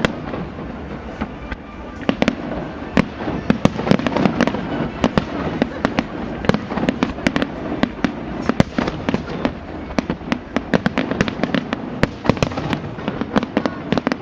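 Fireworks display: a dense, continuous string of sharp bangs and crackles, several a second, over a steady background rumble.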